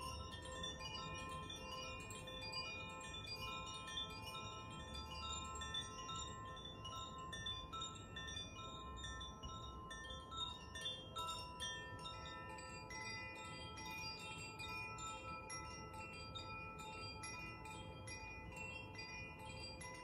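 A Koshi chime and a Zaphir chime swayed by hand, their clappers striking the tuned rods inside: many overlapping ringing tones, struck again and again without a break.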